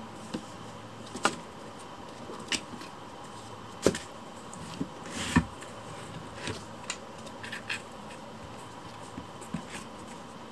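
A kitten's paws and claws tapping and scrabbling on corrugated cardboard scratching pads and the floor. Irregular light knocks and scratches, a few of them sharper, over a steady faint hiss.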